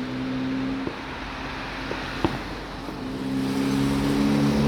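A motor vehicle's engine running with a steady low hum, growing louder over the last couple of seconds as it approaches. A couple of short sharp clicks sound about two seconds in.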